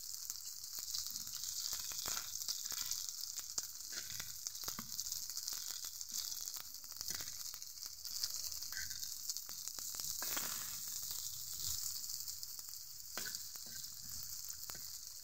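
Batter-coated okra fritters sizzling steadily as they shallow-fry in oil in a karai. Scattered clicks and scrapes of a metal spatula on the pan come through as the fritters are turned over.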